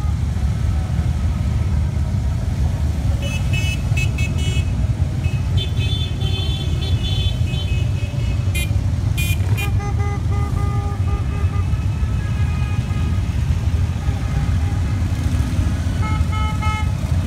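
Many Harley-Davidson V-twin motorcycles riding past in a parade, their engines running in a steady deep rumble. Brief higher tones cut in over it several times.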